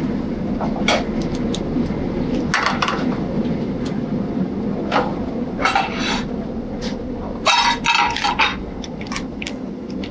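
Restaurant kitchen at a sauté station: a steady low kitchen hum, with short clanks and scrapes of metal pans and utensils, the loudest cluster of clanks about three-quarters of the way through.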